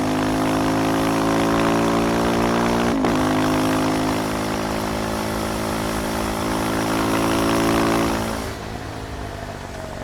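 KTM Duke 390's single-cylinder engine pulling under acceleration, its note rising gradually, with a quick gear change about three seconds in. After about eight seconds the throttle closes and the engine note drops away, quieter.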